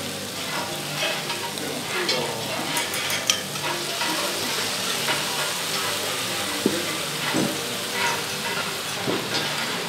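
Tomatoes tipped into a hot cast iron skillet of sautéed vegetables and andouille sausage, sizzling and steaming as they hit the pan, with a spoon scraping them from the bowl and stirring. A couple of sharp spoon clicks stand out about three and seven seconds in.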